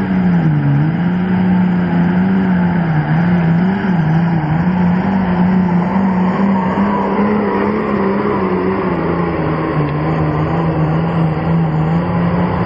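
10,500 lb hot stock pulling tractor's turbocharged diesel engine running flat out under load as it drags the weight-transfer sled down the track. Its pitch dips once just after the launch, then holds steady with small wavering.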